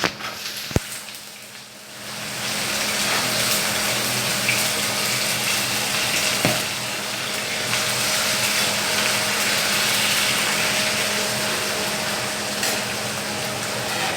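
Diced potatoes frying in hot mustard oil with cumin seeds, garlic and hing: a steady sizzle that swells about two seconds in and holds. There is a sharp click just under a second in.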